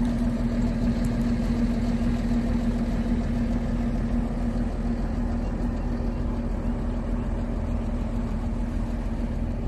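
Excavator's diesel engine idling steadily just after a cold start, a constant hum over its low rumble.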